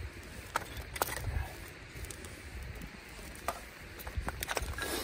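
Wood fire crackling in a camp fire pit, with several sharp pops scattered through it, the fire newly caught and burning fast.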